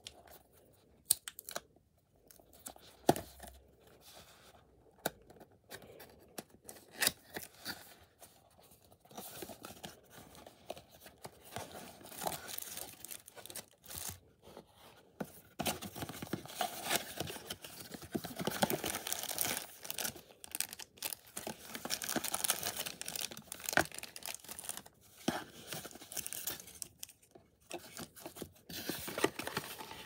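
Unboxing handling noise from a cardboard phone box and its packaging: first scattered sharp clicks and scrapes as the sleeve is slid off and the box opened, then from about a third of the way in a denser, continuous rustle and crinkle of plastic accessory bags and paper being handled.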